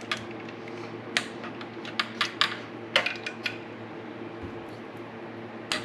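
Sharp metallic clicks and clinks, singly and in quick runs, from hand tools and a small inch-pound torque wrench tightening exhaust manifold bolts, over a steady hum.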